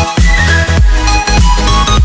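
Background electronic dance music with a steady beat and deep bass hits that slide down in pitch.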